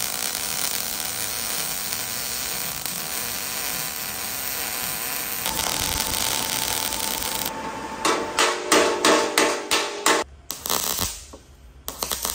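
MIG welder welding the steel bumper with a steady crackling hiss. From about eight seconds in it turns into a string of short, sharp bursts, about three a second, with a pause and a few more near the end: the bead being laid in short stitch welds.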